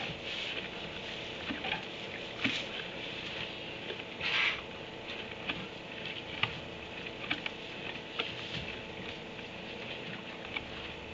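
Light scattered rustling and crackling of hay and bedding as donkeys move and pull hay from a hay net, over a steady faint hum and hiss. A louder rustle comes about four and a half seconds in.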